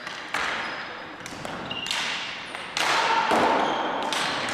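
Ball hockey play in a gymnasium: plastic sticks and ball knocking and thudding on the hardwood floor, with short high squeaks from sneakers, all echoing in the hall. It gets louder a little before three seconds in, as play crowds the net.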